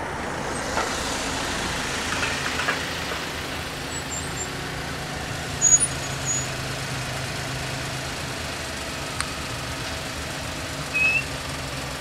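A van's engine idling close by as it stands waiting, a steady low hum. Short, high chirps cut in about halfway through and again near the end; these are the loudest sounds.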